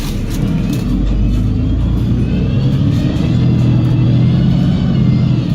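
Double-decker bus drivetrain, a Cummins L9 diesel with a Voith automatic gearbox, pulling under load. A high whine rises in pitch over the engine from about two seconds in and falls back near the end.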